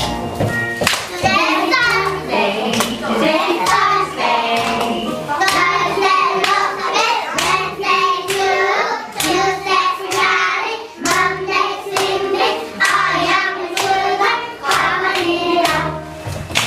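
A group of young children singing an English song together over a backing track, with hand claps keeping the beat.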